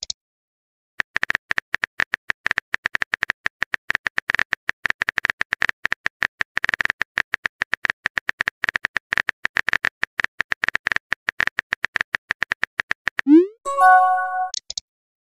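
Rapid keyboard-typing click sound effect, a fast run of light clicks, starting about a second in. About 13 s in comes a short rising swoosh and a chime: a message-sent notification sound.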